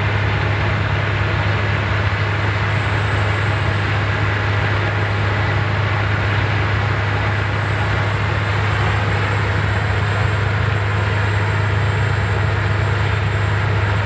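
Bandit Beast horizontal grinder running steadily while it is fed wood by an excavator, a loud unbroken drone of heavy machinery with a strong low hum.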